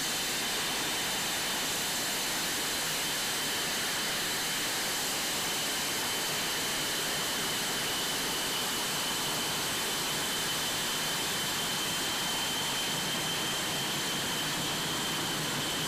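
Jet engines of F/A-18 Hornets running at idle while taxiing: a steady high-pitched whine over an even rushing hiss.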